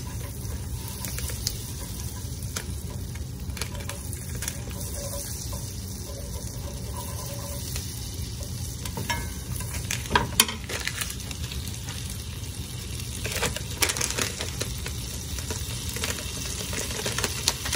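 Butter sizzling and bubbling as it melts in a large nonstick frying pan, stirred around with a fork, the first step of a cheese sauce. A sharp click comes about ten seconds in, and there is rustling near the end.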